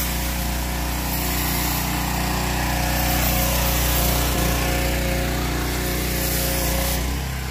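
A small petrol engine, most likely a gas pressure washer's, runs at a steady speed, with an even hiss over its hum.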